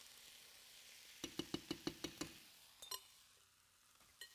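A spoon rapping against a glass bowl to knock the last cooked rice out into a skillet: a quick run of about eight knocks at roughly seven a second, then two single taps.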